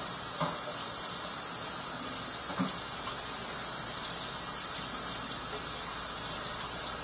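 Kitchen sink faucet running in a steady hissing stream while hands are washed under it.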